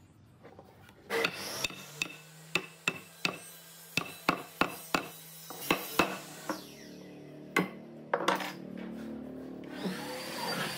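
Wood struck in a quick series of sharp knocks, about two or three a second, as the wooden post is tapped down into its joint in the table base, followed by two louder knocks. Near the end a motor spins up with a rising hum.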